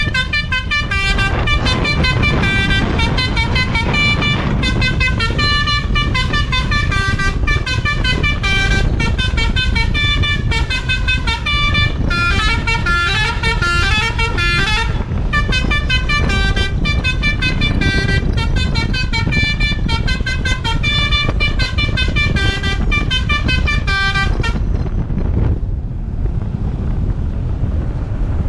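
Basuri V3 telolet musical bus horn playing quick melodies of short notes, one phrase after another with brief pauses, over a steady low rumble. The tunes stop about four seconds before the end, leaving only the rumble.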